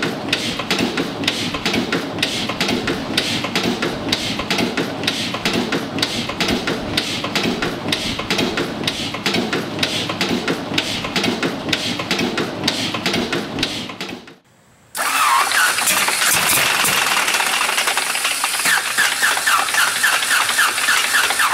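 Large horizontal Deutz MK260 diesel engine running with a steady rhythmic clatter. About 14 seconds in it cuts off, and after a short gap a seven-cylinder Jacobs R-755 radial aircraft engine with a wooden propeller comes in, louder and higher-pitched, running to the end.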